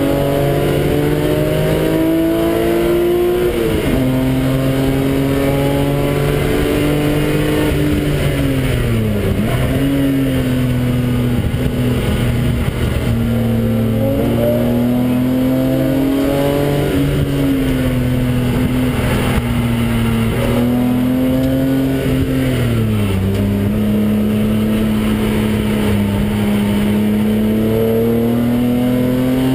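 A BMW's engine heard from inside the cabin while lapping a race track under load. The pitch climbs slowly and dips sharply a few times, about four, nine and twenty-three seconds in, as the driver lifts and changes gear through the corners, over a steady rush of tyre and wind noise.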